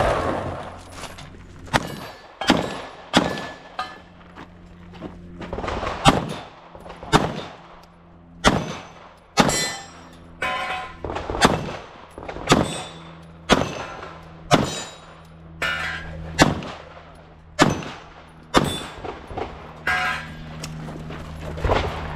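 A semi-automatic pistol fired shot by shot, about one shot a second, with short pauses while the shooter moves between positions. Several shots are followed by a brief metallic ring, typical of rounds striking steel targets.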